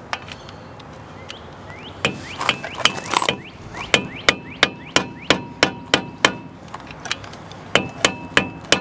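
Hammer striking the end of a flathead screwdriver set against a seized Phillips brake-rotor retaining screw, tapping on the side of the screw head to knock it loose. Sharp metallic taps with a ringing tone, about three a second, start after a few scrapes and clicks, pause briefly after about six seconds, then resume.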